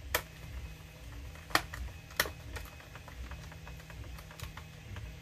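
A few sharp, irregular clicks and taps of a plastic Nerf Rival Takedown blaster shell being handled and moved about on a work mat.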